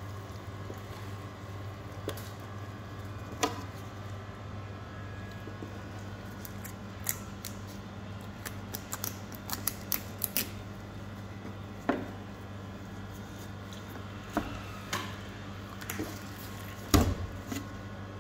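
Filleting knife cutting a skinned monkfish tail on a plastic cutting board, with scattered clicks and knocks of the blade and hands on the board. There is a quick run of clicks about halfway through and the loudest knock near the end, all over a steady low hum.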